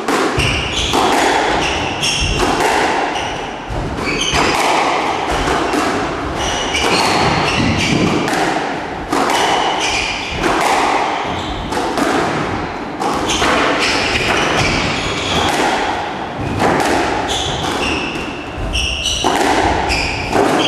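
A squash rally: the ball is struck by rackets and thuds off the walls again and again, with short high squeaks from shoes on the wooden court floor.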